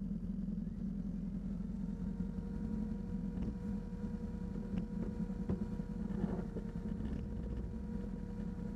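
ATV engine running at low revs with a steady low hum. A steady higher whine joins about two seconds in, along with a few light knocks.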